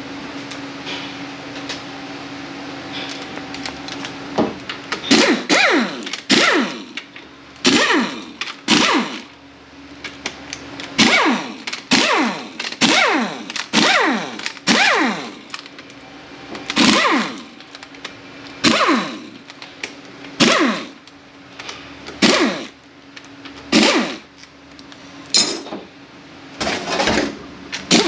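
A power ratchet spinning in short bursts, over and over, as bolts are run out of the transmission case; each burst winds down in pitch as the trigger is released. A steady hum fills the first few seconds before the bursts begin.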